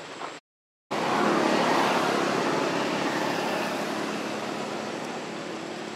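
A steady rushing noise that comes in suddenly after a brief dropout to silence and slowly fades.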